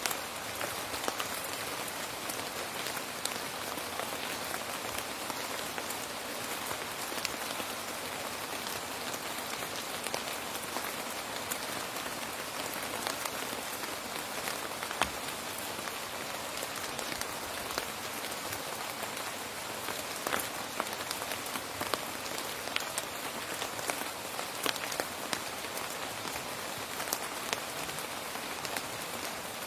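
Steady rain falling on a surface: an even hiss with many distinct drops ticking sharply through it.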